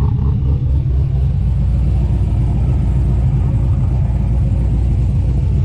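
Car engine with an aggressive aftermarket camshaft, idling with a loud, choppy, uneven rumble: the lopey idle of a cammed engine.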